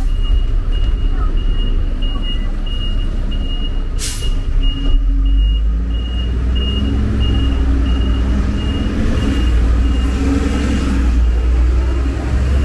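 City street traffic with heavy vehicles running close, the low rumble swelling after about five seconds. A high electronic beep repeats about twice a second throughout, and there is a short hiss about four seconds in.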